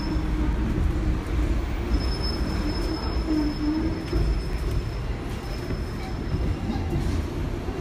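Hong Kong double-decker tram running along its street tracks, heard from inside the car: a steady low rumble of wheels on rail. From about two seconds in until near the end there is also a thin, high-pitched whine.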